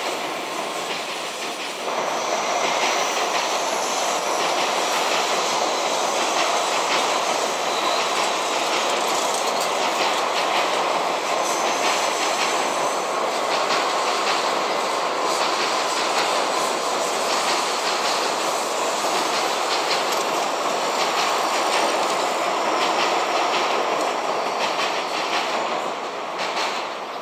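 N700 series Shinkansen train running along a concrete viaduct: a steady rolling noise of the wheels on the rails, with faint clicks over the rail joints and now and then a faint high wheel squeal. It gets louder about two seconds in and fades near the end.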